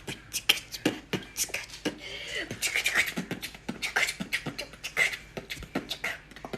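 Congo African grey parrot making a fast run of sharp clicks and pops mixed with short chirps, stopping abruptly near the end.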